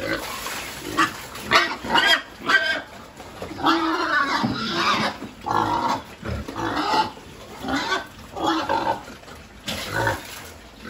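A pen of pigs squealing and grunting at feeding time as feed is poured in among them, in many short calls one after another, with a longer run of calls about four seconds in.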